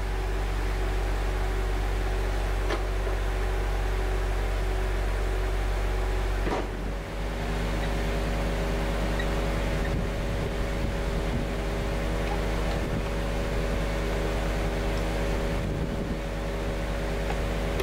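Steady drone of an idling truck engine, with a few faint clicks.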